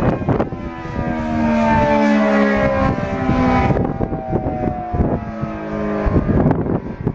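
ACA Allertor 125 outdoor warning siren sounding a steady tone made of several stacked pitches that slide slowly downward, as the siren winds down at the end of its drill run. Wind buffets the microphone.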